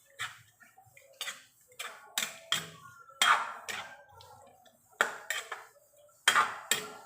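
Kitchen utensils knocking and clinking, about eleven sharp strikes, several in quick pairs, each ringing briefly.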